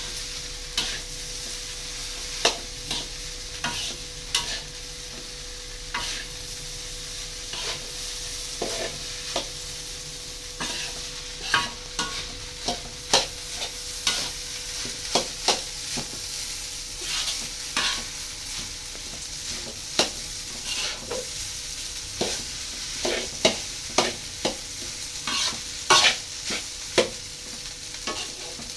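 Fried rice sizzling in a pan while a spatula stirs and scrapes it, with irregular sharp scrapes and knocks of metal on the pan against a steady frying hiss.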